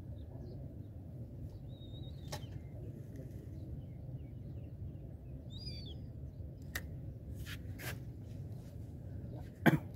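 Steady low outdoor rumble with a bird chirping twice and a few sharp clicks, the loudest one near the end.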